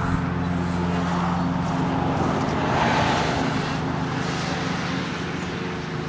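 A car driving past, loudest about three seconds in and then fading, over a steady low mechanical hum.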